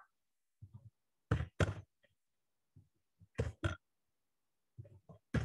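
Computer keyboard keystrokes, short thumpy taps mostly in pairs about a third of a second apart, a pair every two seconds or so, as the value 20 is typed into spreadsheet cells.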